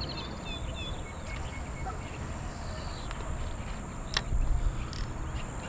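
Lakeside ambience at dawn: insects trilling steadily at a high pitch, with a few short bird chirps in the first couple of seconds and two sharp clicks about four and five seconds in, over a low rumble.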